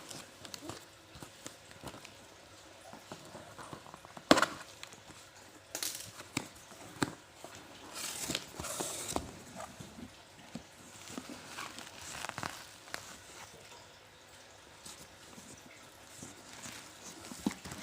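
Packaging being handled while a statue is unboxed: scattered knocks and clicks with bursts of rustling, and one sharper knock about four seconds in.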